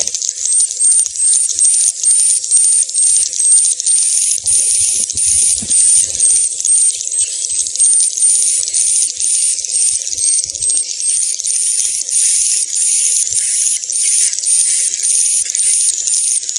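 Swiftlet courtship ('birahi') call: a rapid train of high, chittering twitters, each ending in a short high chirp, repeating about twice a second, the kind of call played to draw swiftlets into a nesting house.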